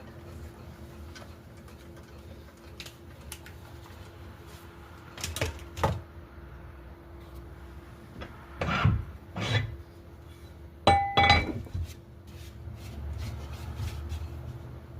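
Hard objects being handled: scattered knocks and clinks in three short clusters, one near the middle with a brief metallic ring, over a faint steady hum.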